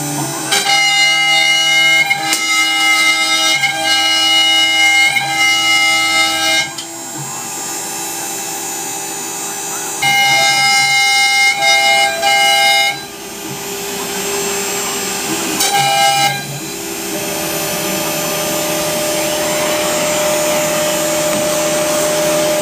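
Laguna CNC router carving wood: a loud machine whine of several steady tones that cut in and out and glide briefly in pitch as the motors start and stop moves.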